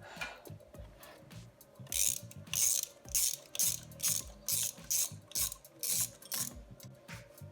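Ratchet wrench being worked in repeated strokes, clicking about twice a second, starting about two seconds in and stopping shortly before the end.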